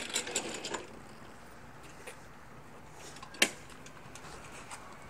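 A few clicks and rattles at the start, then quiet, with one sharp knock about three and a half seconds in. The push mower's engine is not running.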